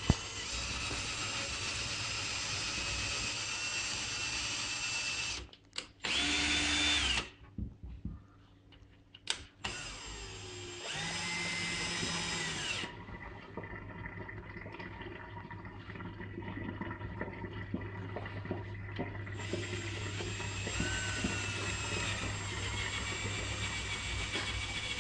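Cordless drill spinning a potato on its bit while the peel is shaved off. It runs in several bursts with short stops between, and its motor pitch rises and falls as it speeds up and slows down.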